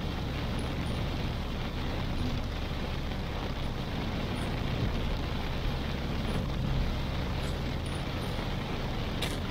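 Car driving in heavy rain: a steady hiss of rain and wet road noise over a low, even engine and road rumble. A single sharp tick sounds near the end.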